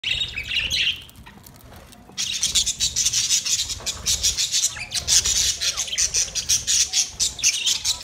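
A flock of budgerigars chattering and squawking as they feed, a dense stream of quick, harsh, high-pitched calls. The calling drops off briefly after the first second and picks up again about two seconds in.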